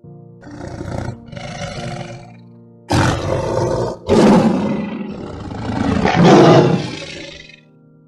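A large wild animal roaring: two shorter growls, then three longer, louder roars from about three seconds in, over background music with held notes.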